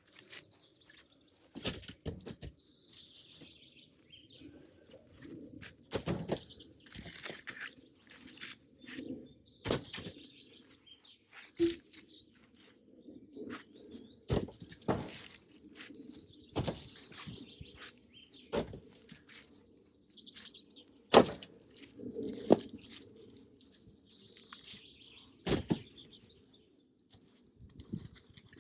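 Birds chirping, with irregular sharp knocks and clicks throughout. The loudest knock comes about two-thirds of the way through.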